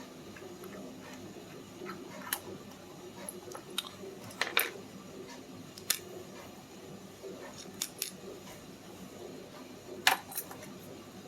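Scattered sharp metallic clicks and taps, about eight, as a pin-in-pin dimple lock is handled and taken apart; the loudest comes near the end.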